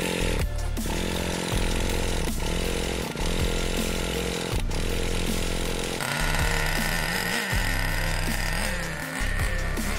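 A handheld electric starter spinning the Traxxas Revo 3.3's small two-stroke TRX 3.3 nitro engine to start it: a steady mechanical buzz that changes pitch and wavers from about six seconds in.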